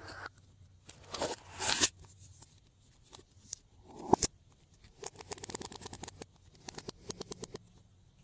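Slime being handled and mixed with clay and makeup: scraping, rustling swells, a sharp snap about four seconds in, then a quick run of small clicks and pops.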